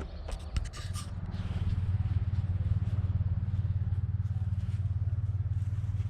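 An engine running close by: a low, steady rumble that swells over the first two seconds and then holds. A few sharp clicks come just before it builds.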